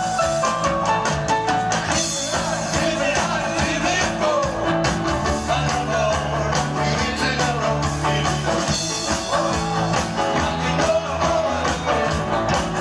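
Rock music with guitar, playing continuously.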